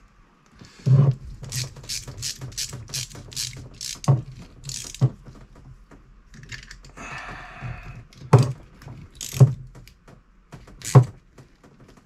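Small clicks and clinks of brass plumbing fittings being handled and screwed together by hand: a quick run of light clicks, a short scraping rustle midway, then a few louder single knocks.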